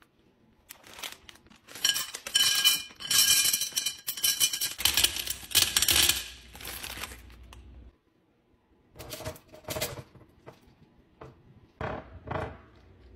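Small decorative stones poured from a plastic bag into a tall glass vase: a dense clattering of stones clinking against the glass and each other for about five seconds. A few shorter scraping knocks follow near the end.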